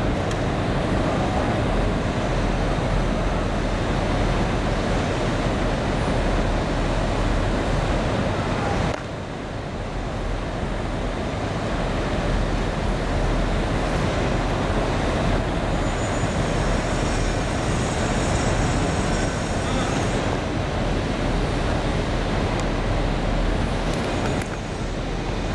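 Steady urban background rumble of city traffic, with no distinct events. The level steps down about nine seconds in and again near the end.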